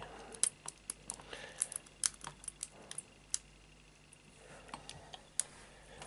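Lock pick and tension wrench working the pin tumblers in a Chubb 40 mm padlock: a quick run of small sharp metallic clicks and scrapes through the first three seconds or so, then sparser clicks with one louder click about five seconds in.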